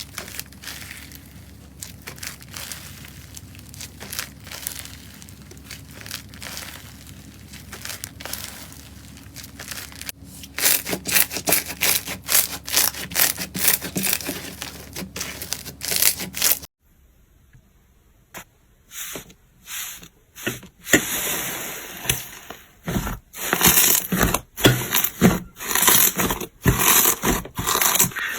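Slime being squeezed and pressed by hand, giving crackling and popping clicks. About two-thirds of the way in there is a cut to another slime: after a moment's quiet the clicks come back louder and denser.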